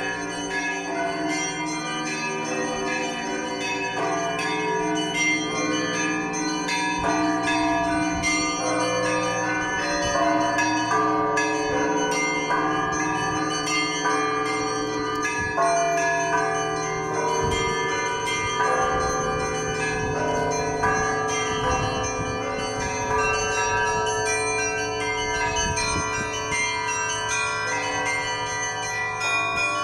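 Several church bells ringing together in a continuous peal. Smaller bells are struck in quick succession over deeper bells that keep ringing underneath.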